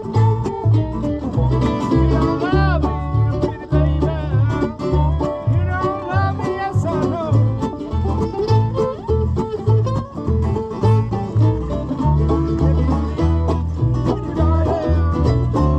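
Live acoustic bluegrass band playing an instrumental tune, led by banjo and guitar over a steady, bouncing low bass line.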